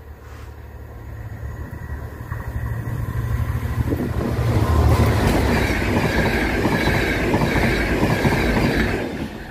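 A diesel locomotive-hauled passenger train approaches with a growing rumble and passes close by from about five seconds in, its wheels clattering on the rails with a high whine. The sound drops off sharply near the end.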